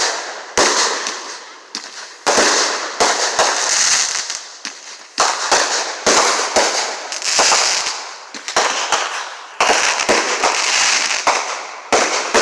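Fireworks going off in quick succession: a string of sharp bangs, often less than a second apart, each followed by a crackling hiss that fades out.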